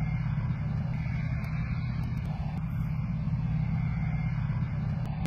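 Steady low rumble of heavy vehicle engines running, with an abrupt change in the sound just before the end.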